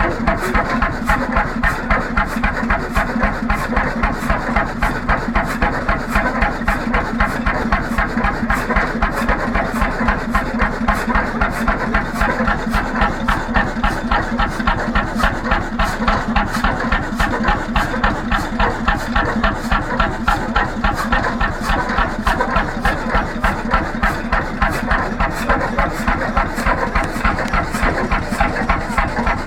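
1943 Bjørnevik 20 hp single-cylinder semi-diesel (hot-bulb) engine running at a steady idle, giving an even, regular beat of firing strokes at an unchanging speed.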